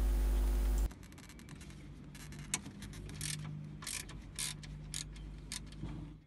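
A steady hum cuts off abruptly about a second in. Then a ratchet wrench with a 10 mm socket clicks in short bursts, with scattered single clicks between them, as it loosens a bolt on a hose-support bracket.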